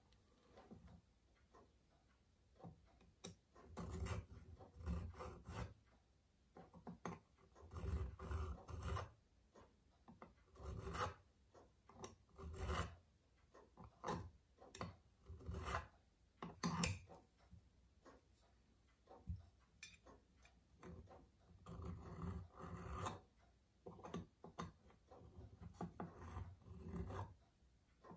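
Flat hand file stroking across the metal edge of a pocket-watch case near its hinge. The strokes come in short runs separated by pauses.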